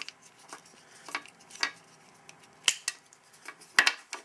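Light, irregular plastic clicks and taps from the pieces of a blown-apart .22 rotary rifle magazine, its red rotor and black housing, being handled and pulled apart on a tabletop. The sharpest clicks come near the end.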